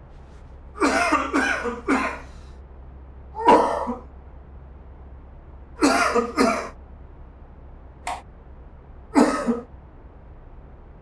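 Person coughing in short hacking bouts: three coughs in quick succession about a second in, one more a moment later, two together around the middle, a brief one, then a last cough near the end.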